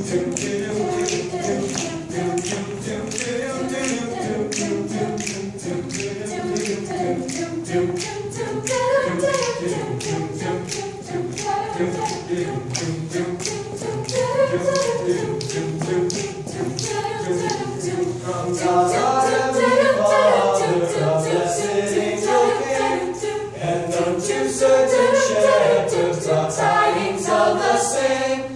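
Mixed-voice a cappella choir singing a Christmas song, with sharp finger snaps on a steady beat. The snaps stop about two-thirds of the way through and the singing grows louder.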